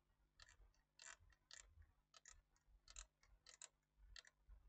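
Near silence broken by faint, irregular light clicks and taps, a few a second, from the plastic front panel of a DVD player being handled.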